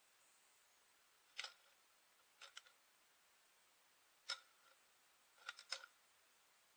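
Light, sparse clicks from a hand-turned oil filter can cutter being rotated around a spin-on aircraft oil filter's can: single clicks with quick double clicks between them, over near-silent room tone.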